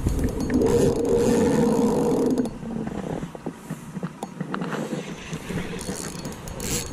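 Spinning reel squeaking as it is cranked against a heavy fish, for about the first two and a half seconds, then quieter with a few light clicks. The squeak comes from a reel strained to its limits by a bull redfish.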